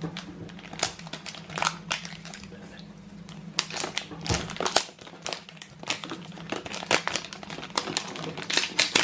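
Crinkling and rustling of a surprise egg's wrapper being unwrapped by hand, in sharp, irregular crackles.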